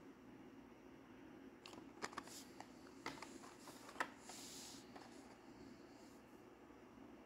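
Quiet handling of Hot Wheels blister-pack cards: a few light clicks and rustles of cardboard and plastic as the cards are turned over and moved, with a brief soft brushing sound a little past the middle.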